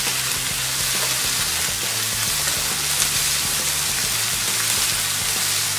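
Diced onion, bell peppers and sweet corn sizzling in butter in a kadhai as they are stir-fried with a wooden spatula: a steady frying hiss.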